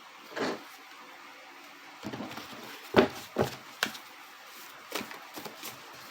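Handling noises: a few short taps and knocks with some light rustling. The loudest knock comes about three seconds in.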